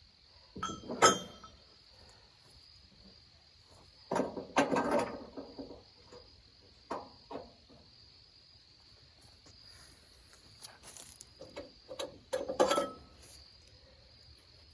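Steady chirring of crickets, broken by several short knocks and clattering bursts: about a second in, around four to five seconds in, and again toward the end.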